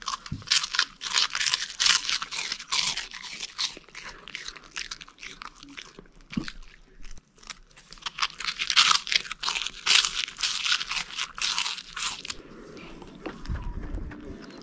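A Pomsky puppy chewing crunchy Cheetos Paws cheese puffs: a fast run of crisp crunches with a short pause about seven seconds in. Near the end the crunching stops and gives way to softer licking from a dessert cup.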